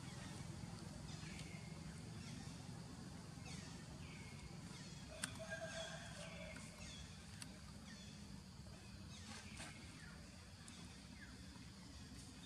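Faint high-pitched animal calls: short chirps that fall in pitch, repeating irregularly every second or so, over a low steady background rumble.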